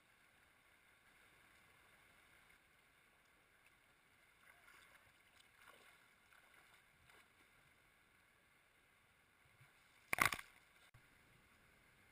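Faint, muffled flowing river water heard through a sealed waterproof camera housing, with a few soft splashes of someone wading past near the middle. About ten seconds in there is a single short, sharp knock, much louder than anything else.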